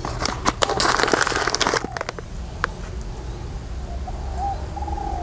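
Crinkling and crackling of a plastic seed bag being handled while cilantro seeds are shaken out by hand: a dense run of crackles in the first two seconds, then a few scattered clicks over a low hum.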